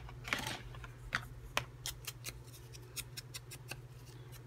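Irregular light clicks, taps and short scratchy rubs of hands working craft supplies: an ink pad being dabbed around the edges of a layered fabric-scrap cluster.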